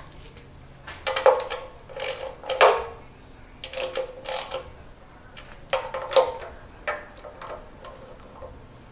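Hand ratchet wrench clicking in about five short bursts as oil pan bolts are tightened down a little at a time.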